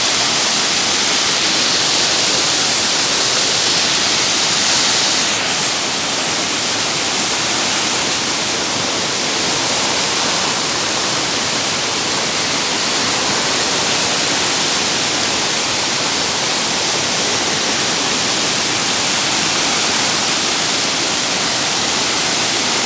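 Waterfall: water falling and splashing in a steady, loud rush.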